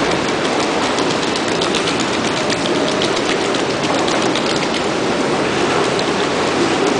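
Steady rushing water noise of an indoor pool, with small splashes and drips ticking through it.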